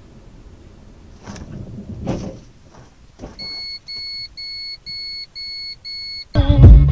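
Low in-car rumble with a few dull knocks, then six evenly spaced electronic beeps, about two a second. Loud hip hop music cuts in near the end.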